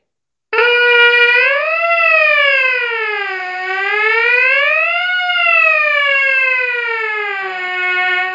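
Trumpet mouthpiece buzzed on its own as a warm-up exercise. A held note starts about half a second in, slides up and down in two slow siren-like sweeps, then settles on a lower held note near the end.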